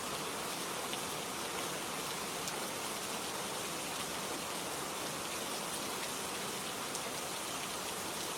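Steady rain falling, an even hiss of many drops with the odd sharper drop ticking through.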